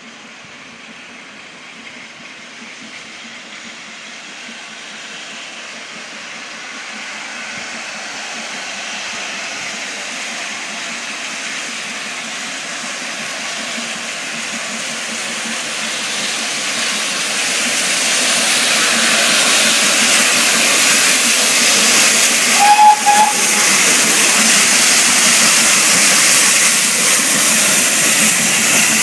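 GWR Castle class 4-6-0 steam locomotive approaching with its train, its noise growing steadily louder as it draws near. A short whistle toot sounds a few seconds before the end.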